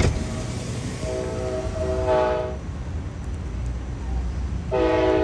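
Sounder commuter train sounding its horn as it approaches: two chord blasts, the first starting about a second in and lasting about a second and a half, the second starting near the end, over the low rumble of the train. A sharp click at the very start.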